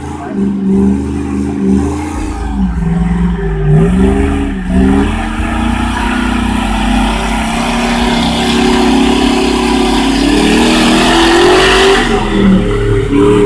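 Engine of a lifted mud truck on oversized tires revving hard as it drives through a flooded mud hole. The revs drop and pick up twice in the first few seconds, then stay high as it comes closer. Near the end, a loud rushing wash of water and mud thrown by the tires builds up over the engine.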